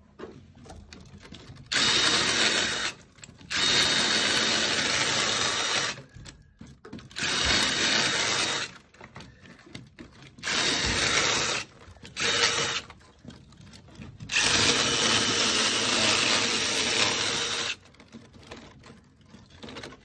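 Cordless drill with a masonry bit boring into the mortar (grout) joint of a compressed earth block wall. It runs in six bursts of one to three seconds, with short pauses between them.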